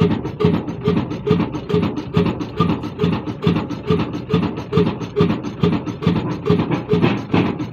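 Large old 1973 horizontal single-cylinder diesel engine with big flywheels running slowly, firing in regular heavy beats about twice a second. A rasping grind from the flour mill it drives, as grain is poured in, runs underneath.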